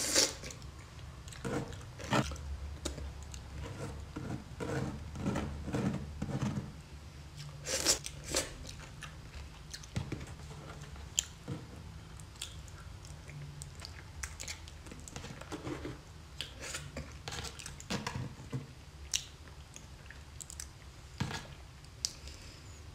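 Close-miked chewing of raw salmon sashimi: soft, wet mouth sounds with scattered sharp clicks, the loudest near the start and at about two and eight seconds in.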